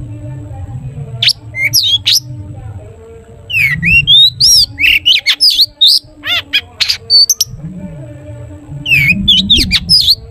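Long-tailed shrike (cendet) singing in phrases of rapid, varied notes with fast up-and-down sweeps: a short phrase about a second in, a long dense run in the middle, and another near the end. A steady low hum runs underneath.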